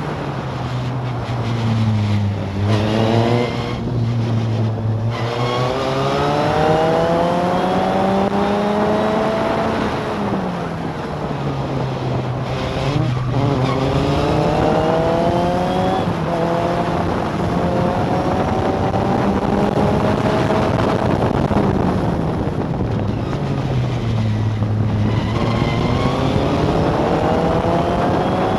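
Onboard sound of a historic four-cylinder formula racing car's engine under hard use, its revs climbing through each gear, then falling away and picking up again several times as the driver brakes and shifts.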